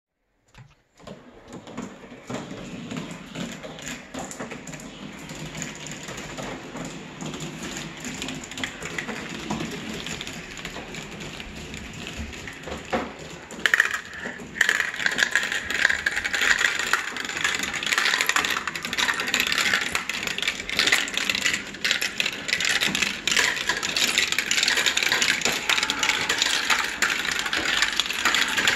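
Marbles rolling and clattering through plastic marble-run funnels and tubes and along orange plastic Hot Wheels track, a dense rattle of small clicks. It grows louder about halfway through.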